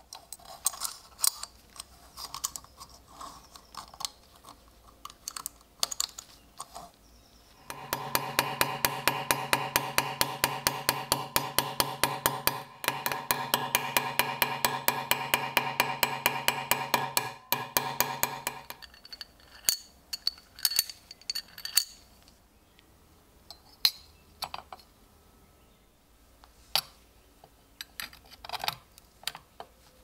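Ball-peen hammer tapping rapidly and evenly on a small steel pin in a belt buckle part held on a vise's anvil horn, peening it over, with a steady hum underneath, for about eleven seconds from roughly a quarter of the way in. Scattered light metal clicks of handling the small parts come before and after.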